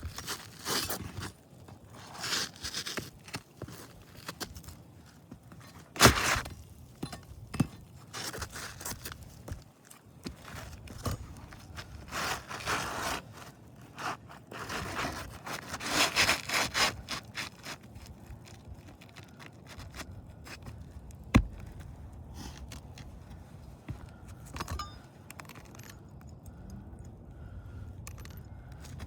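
Roofing shingles being lifted and scraped loose by hand and tool: irregular scraping and rustling in bursts, with two sharp single knocks.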